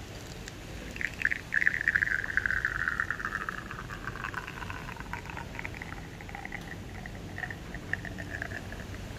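Espresso streaming from a bottomless basket on a manual lever espresso press into a glass mug, a crackling trickle that starts about a second in, is loudest over the next two seconds and then goes on more faintly, slowly falling in pitch.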